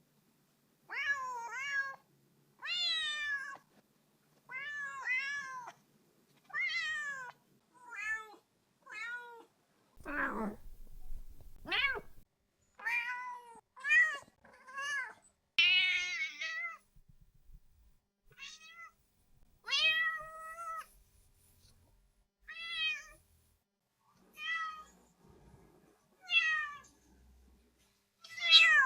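Domestic cat meowing over and over: about twenty separate meows, each under a second or so and rising then falling in pitch, with short silent gaps between them.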